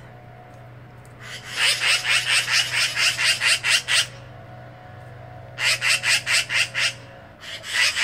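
Black-billed magpie giving its rapid, harsh chatter call, about six notes a second, in three runs: one over two seconds long, a shorter one, and a third starting near the end.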